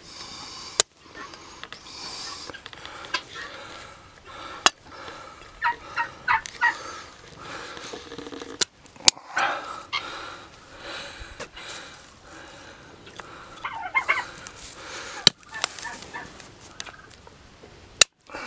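Horse hoof nippers snapping through a pig's overgrown, very hard claws: six sharp single cracks a few seconds apart, two close together about nine seconds in. Short runs of high calls sound in the background.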